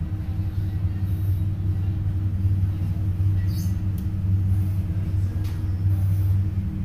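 Towboat's diesel engines running steadily under way, a deep even drone heard from inside the wheelhouse. A few faint high ticks come around the middle.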